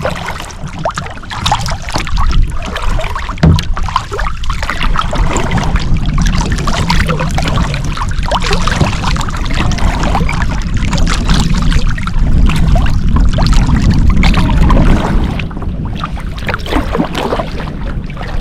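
Kayak paddle strokes in lake water: repeated splashing and dripping as the blades dip and lift, over a steady low rumble. The splashing eases off near the end.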